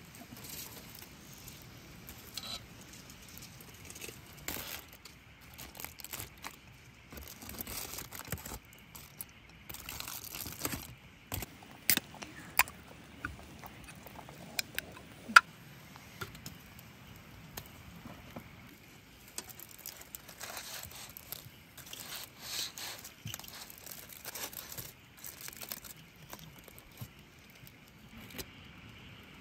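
Aluminium foil packets crinkling and metal tongs clicking against a wire grill grate over a charcoal fire, in scattered rustles and clicks with a few sharper clinks about halfway through.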